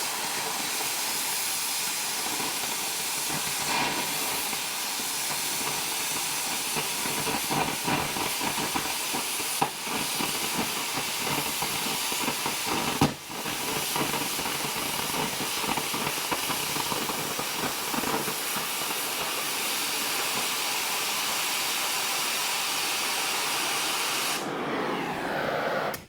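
Angle grinder with a cut-off wheel cutting through steel plate along a scribed line: a steady, loud rush of noise with a couple of brief knocks partway through. Near the end the cut stops and the wheel winds down in falling pitch.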